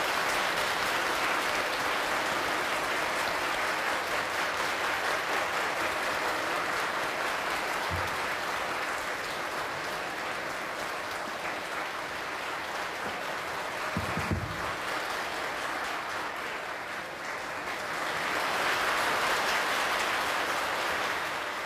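A large crowd applauding with steady, sustained clapping that eases a little midway and builds again near the end.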